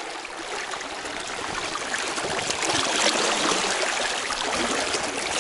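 Fast, shallow river water rushing and splashing close to the microphone, growing louder and more splashy from about halfway through.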